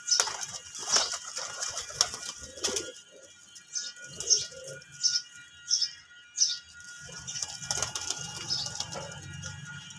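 Domestic pigeons cooing softly, with scattered sharp clicks and, near the end, a flutter of wings as a bird flies in.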